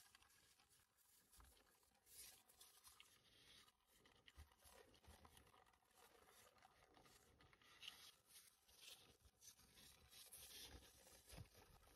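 Near silence: room tone with faint, scattered handling noises as a small plastic crate of miniature glass bottles is turned in the hands.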